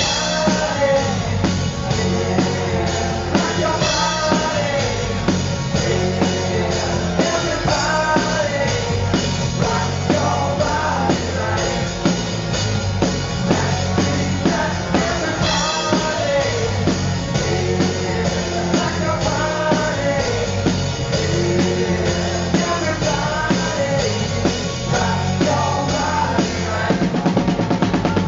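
Rock band music with a steady drum-kit beat under a singing voice.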